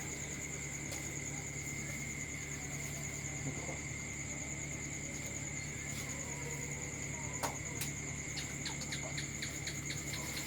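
Crickets trilling steadily at a high pitch, with a quick run of small crisp ticks near the end.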